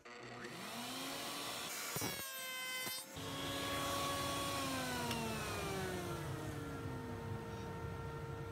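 Router table motor with a carbide sash cutter: a rising whine as it spins up, a short stretch of cutting across the end grain of a wood rail about two seconds in, then a long falling whine as the cutter coasts down after switch-off.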